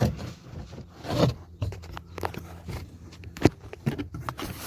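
Clicks and scrapes of hands handling the door handle mechanism and loose door panel inside a car door, with one sharp click about three and a half seconds in.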